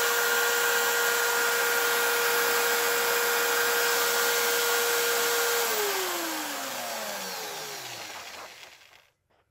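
Electric drill spinning a coin ring on a rubber drum mandrel at a steady whine, with steel wool rubbing against the ring. About two-thirds of the way through the drill is switched off, and its pitch falls and fades as it coasts to a stop.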